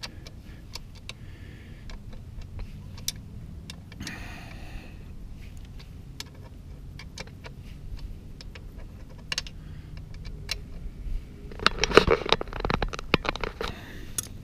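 Scattered light clicks and clinks of a motorcycle radiator guard and its mounting hardware being handled and fitted by hand. A louder clatter of handling comes about twelve seconds in.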